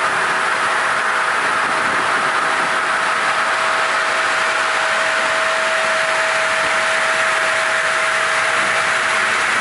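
LIGNUMA TR-800 circular sawmill running freely with no log in the cut: its electric motor and spinning saw give a steady, even noise with a constant whine.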